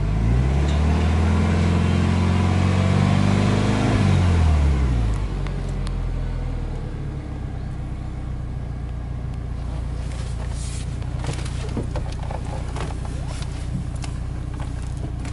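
Subaru Impreza WRX STi Spec C's EJ20 turbocharged flat-four, heard from inside the cabin, revved once from idle and held for about three seconds, then dropping back to a steady fast idle. The coolant gauge still reads near cold. Light clicks and rustles come in over the idle in the last few seconds.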